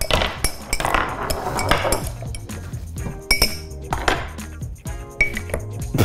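A metal bar spoon clinking and tapping against a glass mixing jug as chopped peach is muddled with syrup, over background music.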